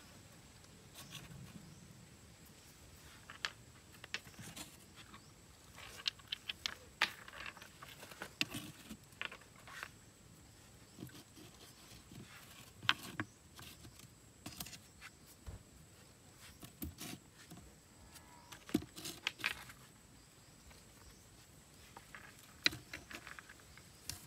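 Smooth stones being set by hand into a stove's ashy chamber, clacking against one another and scraping on the floor in scattered sharp clicks and knocks.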